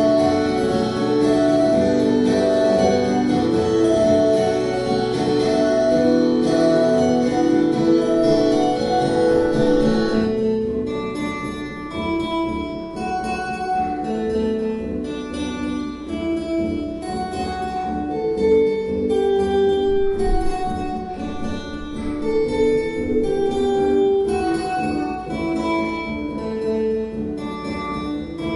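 Two acoustic guitars playing an instrumental duet. The playing is dense and full-chorded for about the first ten seconds, then thins to separate picked melody notes over lighter backing.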